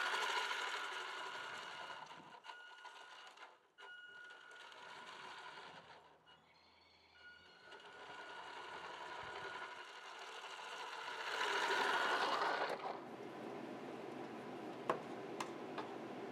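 Scratch-built RC model truck's electric drive motor and 3D-printed gearboxes whining steadily as it drives over paving stones. The whine dips twice briefly and is loudest just before it stops short, about three-quarters of the way through. A few sharp clicks follow near the end.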